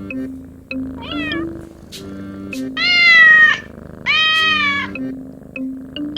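Young kitten meowing three times: a short, thin meow about a second in, then two longer, louder meows close together near the middle. Background music with steady low notes plays underneath.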